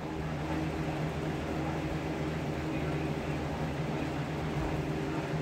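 Electric fan running steadily: a low even hum with a whir of moving air.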